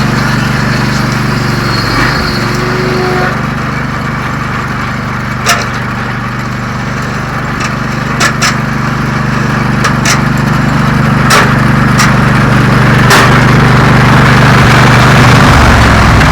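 Lucas sawmill's engine running steadily while its slab-flattening disc cuts across a red oak slab in a shallow pass. The cutting noise builds toward the end, with a few sharp clicks scattered through.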